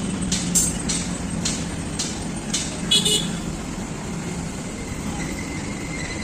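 Road traffic running steadily, with a short vehicle horn toot about three seconds in and scattered light clicks and knocks.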